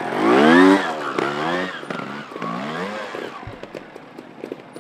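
Trials motorcycle engine blipped three times, each rev rising and falling in pitch, the first the loudest, before settling to a lower running sound.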